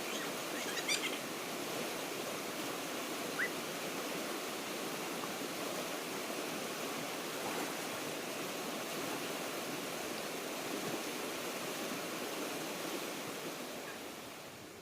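Steady rush of flowing water from a mountain stream, with a couple of short bird chirps early on. The rush fades away near the end.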